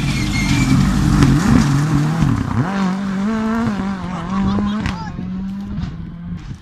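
Rally car engine running hard as the car passes at speed on a gravel stage. The engine note wavers, dips sharply about two and a half seconds in, then holds steady before fading near the end.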